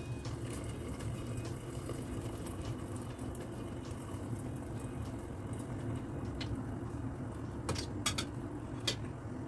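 Fish soup running through a strainer into a stockpot of boiling water, a steady low bubbling and trickling of liquid, with a few light clicks of the ladle against the strainer near the end.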